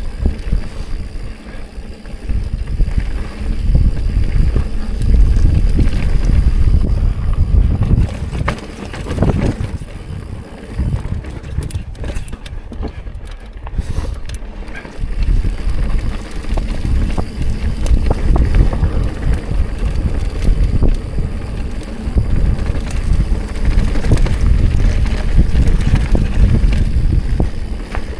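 Mountain bike riding down a rocky dirt trail: tyres rolling over rock and dirt with knocks and rattles, and wind rumbling on the microphone. It eases off for a few seconds in the middle.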